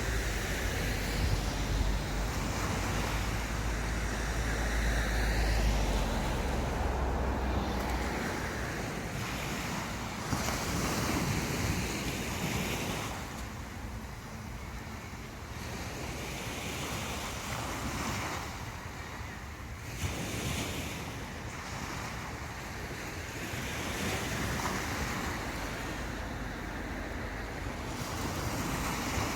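Sea surf breaking and washing up a sandy beach, the wash swelling and easing every few seconds. Wind rumbles on the microphone for roughly the first third, then drops away.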